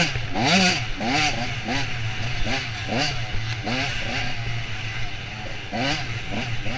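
Off-road dirt bike engine revved up and let off again and again as the rider works the throttle on the trail, its pitch climbing and dropping back in quick, uneven surges about once a second.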